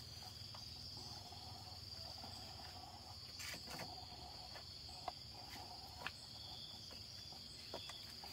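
Steady high-pitched drone of insects, with a few sharp clicks or knocks.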